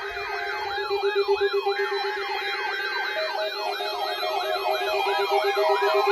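Electronic siren in a rapid yelp, about four rising-and-falling sweeps a second, over a fast-pulsing lower alarm beep; a second beeping tone joins about three seconds in.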